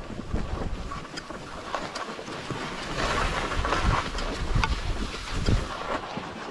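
Skis sliding and scraping over packed, chopped-up snow, with wind buffeting the microphone. The scraping gets louder for a second or so around the middle.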